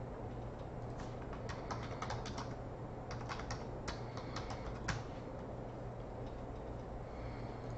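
Computer keyboard typing: irregular runs of keystroke clicks starting about a second in and stopping about two-thirds of the way through, over a steady low hum.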